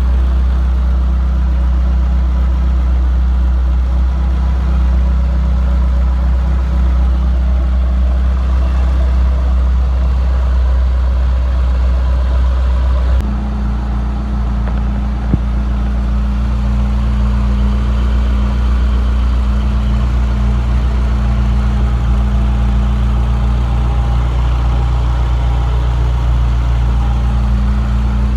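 Toyota 4A-GE 20-valve inline-four engine idling steadily. The engine note changes abruptly about 13 seconds in, and there is a single click about two seconds later.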